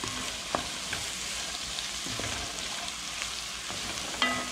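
Chopped onion, bell pepper, celery and garlic sizzling as they sauté in a stainless steel pot, stirred with a wooden spoon that scrapes and clicks against the pot now and then, with a sharper knock near the end.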